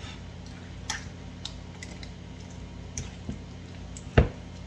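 A spoon stirring thick cream cheese and sour cream in a glass bowl: scattered soft clicks and squishes, with one louder knock against the bowl about four seconds in, over a steady low hum.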